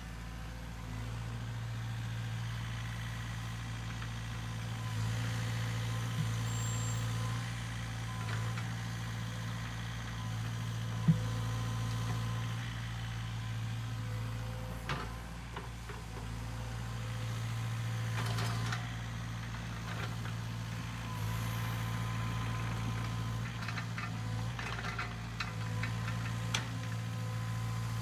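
Sany SY50U mini excavator's diesel engine running steadily, its note swelling and easing every few seconds as the hydraulics take load, with occasional sharp knocks and clanks from the working arm.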